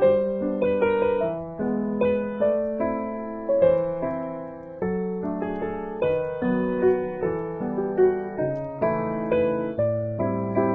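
Background piano music: a gentle melody of single struck notes over lower chords, each note fading after it is struck.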